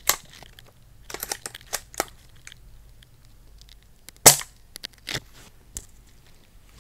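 Amoeba AS-01 spring-powered airsoft bolt-action sniper rifle firing one sharp shot about four seconds in, the loudest of several cracks and clicks from the rifle's action and handling.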